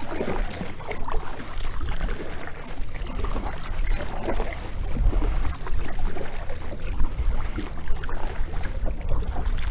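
Kayak paddle strokes dipping into lake water, with splashing and water lapping at the hull, over a low wind rumble on the microphone.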